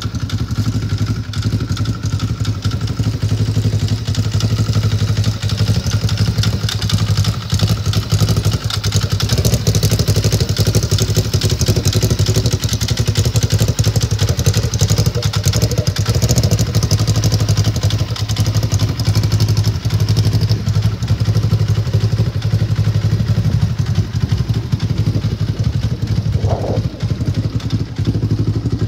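2014 Polaris RZR XP 1000's 999 cc parallel-twin engine idling steadily.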